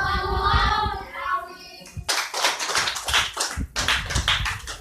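A chanting voice for about the first two seconds, then hand clapping that starts suddenly and goes on in dense, uneven claps.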